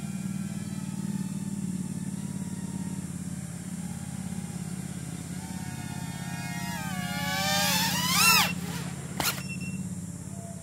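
Rotor X Atom 120 micro quadcopter's brushless motors and propellers whining in flight, the pitch wavering with the throttle. The whine climbs and grows loud about eight seconds in, then falls sharply in pitch, and a short sharp click follows about a second later.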